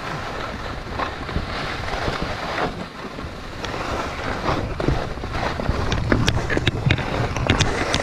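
Skis sliding and scraping over packed snow while skiing downhill, with wind rushing across the microphone. Short sharp clicks and scrapes come thick and fast in the last few seconds.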